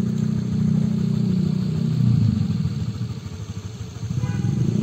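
A motor vehicle engine idling steadily, dipping a little in level past the middle.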